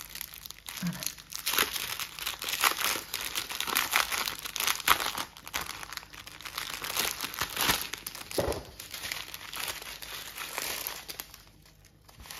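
Small plastic packets of diamond-painting drills crinkling as they are handled one after another, a string of crackly rustles that dies down near the end.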